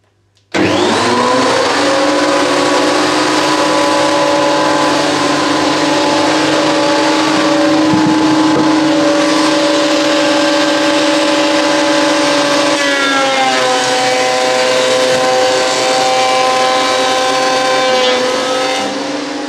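Makita benchtop thickness planer switched on about half a second in, its motor spinning up quickly to a loud, steady whine. About thirteen seconds in the pitch drops and the sound turns rougher as a board is fed through and planed. It begins to fade near the end.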